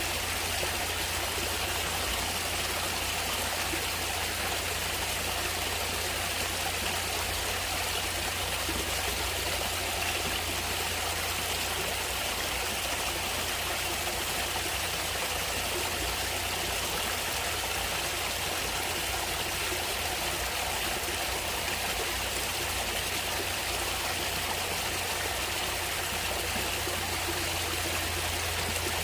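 A natural stream flowing steadily, its water running in an even, unbroken rush.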